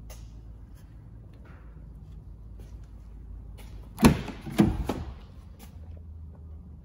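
Rear door of a Citroen C4 Grand Picasso being opened by its outside handle: two sharp clunks about half a second apart as the handle is pulled and the latch lets go.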